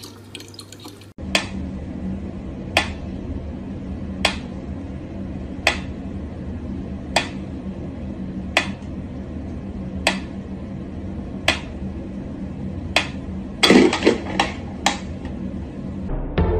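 Mechanical pendulum metronome ticking slowly and evenly, about one sharp tick every second and a half, over a steady low hum. Near the end comes a quick flurry of louder clicks and knocks. Faint running tap water is heard for the first second.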